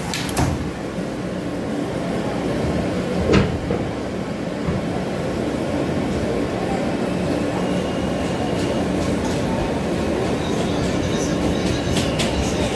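New York subway J train heard from inside the car as it pulls out of an elevated station and gathers speed. Its running noise grows slowly louder, with a couple of sharp clicks and a quick run of clicks near the end.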